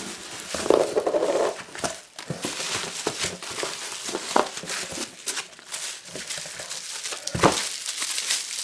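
Bubble wrap and plastic packing crinkling and rustling as a hand rummages through a cardboard box, with scattered small clicks and one sharp knock about seven seconds in.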